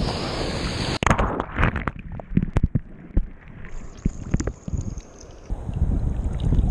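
Sea water sloshing and splashing around a chest-mounted camera as a wave washes past a wader, with wind on the microphone: steady noise, a sudden break about a second in, then a run of short splashes and gurgles before the wash of water and wind steadies again near the end.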